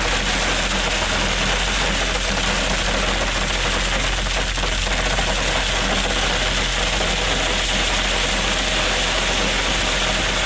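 Engine of a piece of heavy equipment running steadily, with no change in speed.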